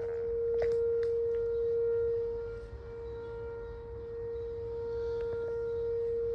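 Outdoor warning siren sounding a steady single-pitch tone during a scheduled test. The tone swells, fades about midway, then grows louder again.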